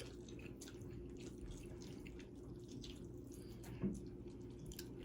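Faint wet mouth clicks and soft smacks of someone chewing food close to the microphone, scattered and irregular, with one slightly louder click about four seconds in.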